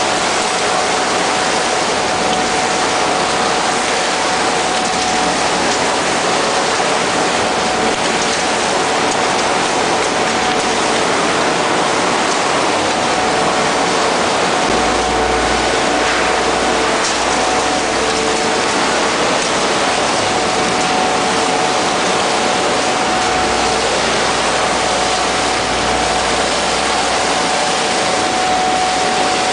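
Putzmeister SPM 4210 wet-shotcrete machine spraying concrete through its boom nozzle: a loud, steady rushing hiss of compressed air and concrete, with a constant whine underneath. A deeper rumble swells twice, about halfway through and again near the end.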